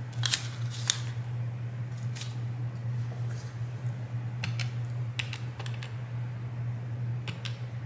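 Pen tip tapping the keys of a desk calculator: a handful of short, scattered clicks over a steady low hum.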